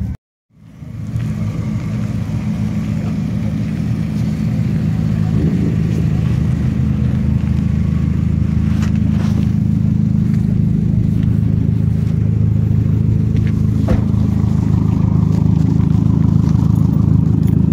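First-generation Mazda Miata's four-cylinder engine idling, a steady low drone that grows slowly louder toward the exhaust, after a brief gap of silence at the start.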